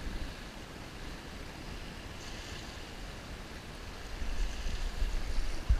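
Wind buffeting the microphone over small waves lapping at a shallow shoreline, with the gusts growing louder about four seconds in.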